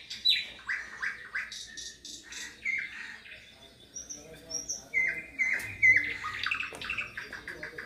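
Several birds chirping and calling: short, repeated falling chirps, with a quick run of them about five seconds in.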